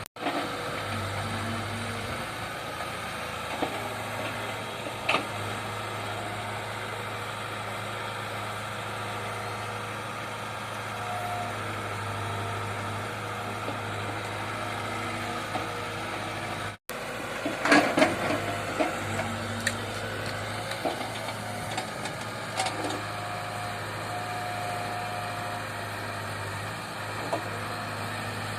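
Excavator's diesel engine running steadily. About two-thirds of the way in, the sound drops out for an instant, followed by a cluster of sharp knocks and clanks.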